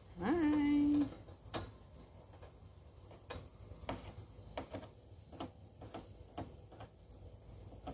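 A short hummed voice tone near the start, rising then held for under a second, followed by faint, irregular clicks about one or two a second from a dwarf hamster gnawing and chewing at its cage.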